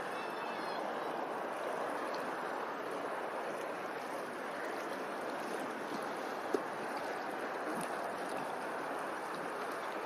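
Steady rushing noise of open water, with one sharp click about six and a half seconds in.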